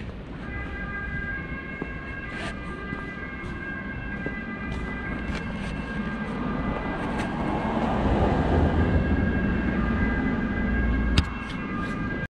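A steady mechanical whine of several high tones over a low rumble, growing louder as it goes, with light clicks and one sharp click near the end.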